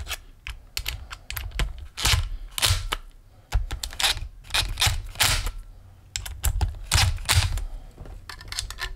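Hand screwdriver tightening Phillips head screws into a linear actuator's aluminium gearbox casting: a string of irregular clicks and knocks from the tool and the handled metal housing.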